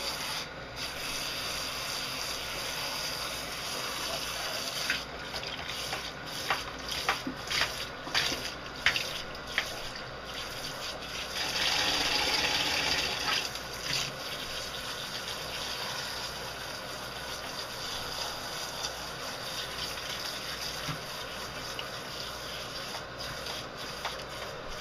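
Handheld shower spray running steadily into a wet Old English Sheepdog's long coat while a hand rubs through the hair, rinsing out the conditioner. The sound goes uneven between about five and ten seconds in and is loudest for a couple of seconds around twelve seconds in.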